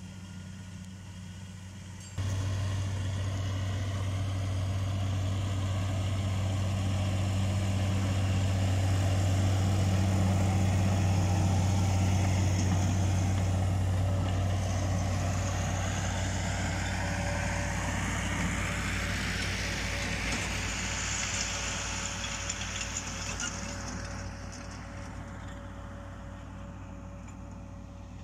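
Claas tractor engine running steadily as it pulls a ring roller over tilled soil. It gets suddenly louder about two seconds in, is loudest as the tractor passes close, then fades as it moves away.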